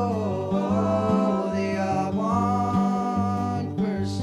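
Background music: a song with a voice holding long, gliding notes over plucked acoustic guitar and a repeating bass line.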